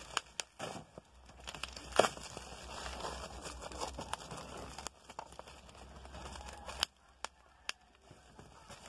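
Plastic bubble-wrap packaging being torn open by hand: crinkling and tearing with sharp crackles, the loudest about two seconds in. It thins out near the end to a few separate clicks.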